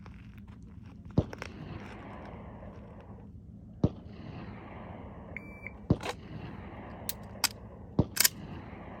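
Semi-automatic pistol handling in a malfunction drill: a short faint shot-timer beep about halfway through, then a run of sharp clicks and clacks, the dead trigger click on an empty chamber followed by the magazine tap and the slide being racked to load a round.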